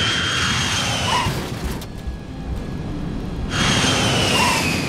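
BAe 146 four-engine jet airliner rushing past on landing: a loud rush of jet noise with a high engine whine that falls in pitch, heard twice, at the start and again about three and a half seconds in.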